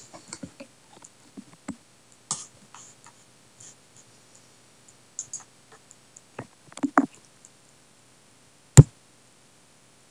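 Scattered light clicks and taps of small objects being handled on a desk, a few in quick succession around seven seconds in, then one sharp, loud click about nine seconds in.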